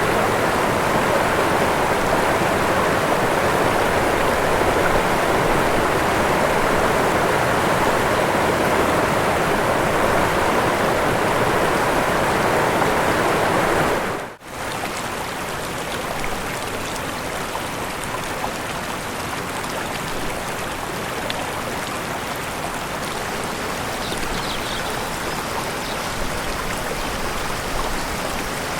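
Waterfall: steady rushing of falling water. About halfway through it drops out for a moment and a quieter, thinner rush of water takes over.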